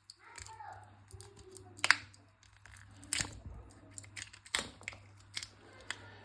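Small tool and fingers working on the plastic parts of counterfeit AirPods while the battery is being pried free: irregular sharp clicks, about four of them, between scraping and crinkling.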